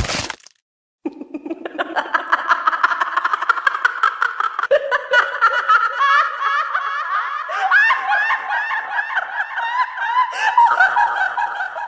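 A loud bang right at the start, then, about a second later, a long run of rapid laughter that goes higher in pitch about halfway through and cuts off abruptly.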